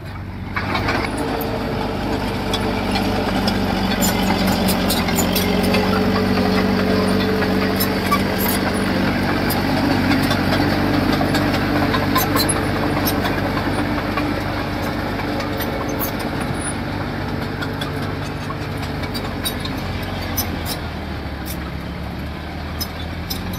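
Diesel engine of a small dozer or dump truck running steadily, getting louder about half a second in and holding. Scattered light clicks and clanks run through it.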